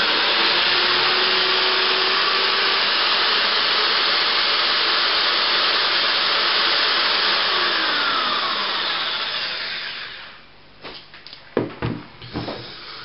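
Power drill running steadily in reverse, turning a speedometer cable that drives a motorcycle speedometer and rolls its odometer backwards. The whirr winds down about ten seconds in, followed by a few clicks and knocks of handling.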